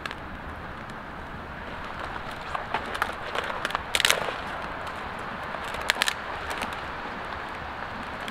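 Small twig campfire, newly caught, crackling with scattered sharp pops and snaps, the loudest clusters about four seconds in and again near six seconds.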